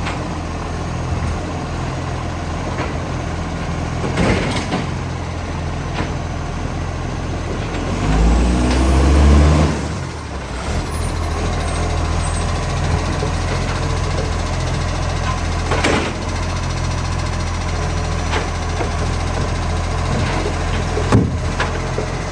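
Garbage truck's diesel engine running with a huge exhaust leak, a steady low drone that swells louder for a couple of seconds near the middle. A few brief sharp noises cut across it.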